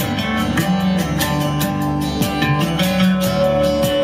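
Guitar-led music played at full volume through a Tronsmart Force 2 Bluetooth speaker, with a steady beat and held bass notes, as heard in the room.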